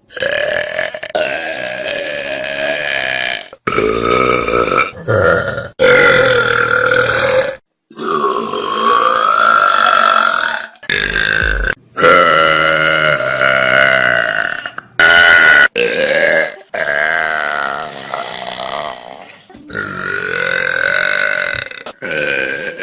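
A run of about ten long, loud human burps, each drawn out at a fairly steady pitch. They are cut one straight after another, with abrupt breaks between them.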